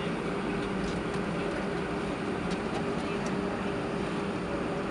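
Airbus A320 cabin noise while taxiing, heard from inside the cabin: the jet engines run at low taxi power, making a steady hum under an even rushing hiss.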